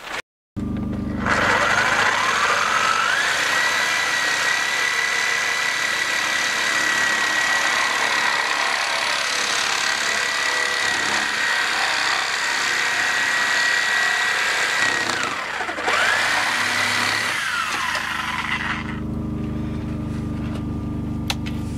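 DeWalt reciprocating saw cutting through black plastic sewer pipe. The motor whine climbs to full speed about three seconds in and runs steady. Near the end it dips briefly and picks up again, then winds down and stops.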